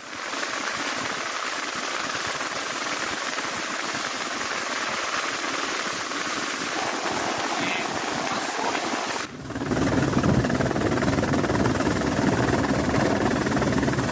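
Helicopter rotor and engine noise, a steady rushing sound. About nine seconds in it cuts briefly and returns louder and deeper, as heard from aboard the helicopter.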